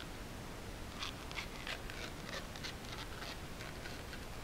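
Orange plastic extrusion cover being pressed and slid into the slot of a 3D printer's aluminium frame extrusion: a run of light scraping clicks starting about a second in.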